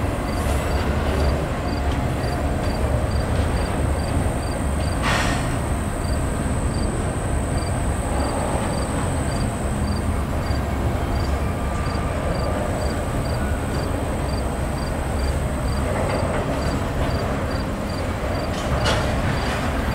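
Double-stack intermodal freight train's loaded well cars rolling past on the rails, a steady low rumble, with a short sharp noise from the cars about five seconds in.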